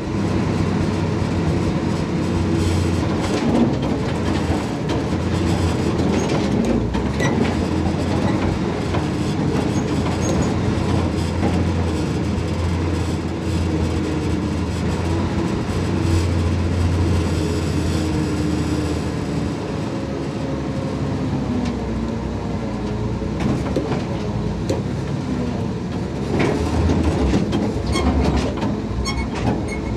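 Dodge M37 truck's flathead straight-six engine running as the truck crawls over rough ground, its pitch rising and falling with the throttle. The body and wrecker crane rigging rattle and clank now and then.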